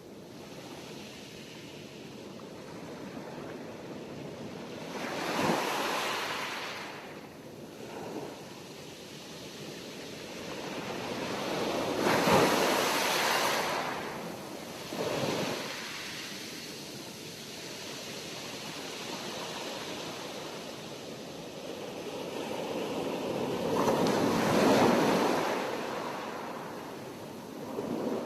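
Sea waves breaking and washing in, one after another: each surge of surf swells up and falls back over a second or two, with three bigger waves standing out, over a steady hiss of surf between them.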